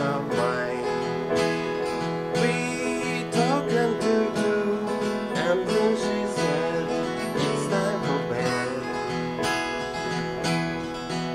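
Acoustic guitar strummed and picked, with a man singing over it.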